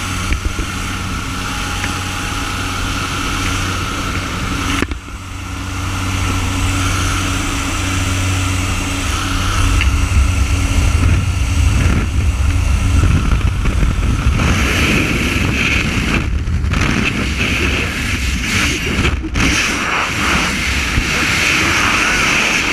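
Twin Otter jump plane's turboprop engines droning with the rush of air through the open door, heard from inside the cabin. The drone grows louder a few seconds in, and a harsher hiss of wind joins past the middle as the jumper moves into the door.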